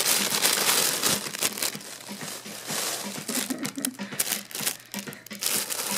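Crinkly nylon cat tunnel rustling and crinkling in irregular bursts as a kitten scrambles inside it. The rustling is loudest in the first second or so.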